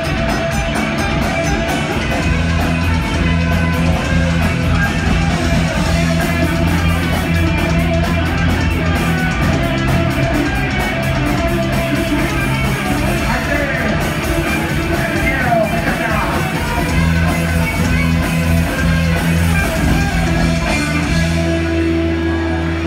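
Live punk rock band playing loud, with distorted electric guitars, bass and drums, the guitars holding low chords that change now and then.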